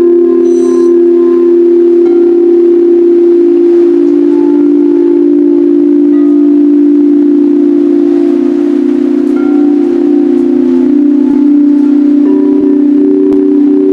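Sound bowls ringing together in long, held, overlapping tones at several pitches. The level is steady and loud, and the mix of notes shifts slightly now and then.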